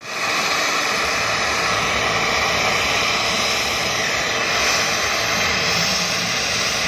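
Mi-17-type military helicopter's turbine engines running on the ground, a loud, steady rushing noise.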